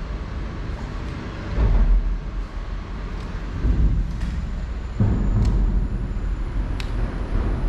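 Low rumble of road traffic crossing the concrete bridge deck overhead. It swells briefly near two seconds and grows louder again at about five seconds.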